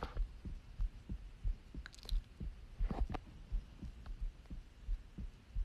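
Heartbeat picked up by a smartphone's microphone pressed against the chest: a steady run of low thuds, with a couple of brief scratchy noises near the middle.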